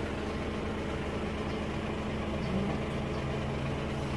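A steady low mechanical hum with a constant droning pitch, like an engine idling.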